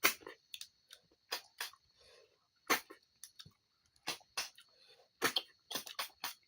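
Snails being sucked out of their shells: a run of short, sharp slurps at irregular intervals, about a dozen in all.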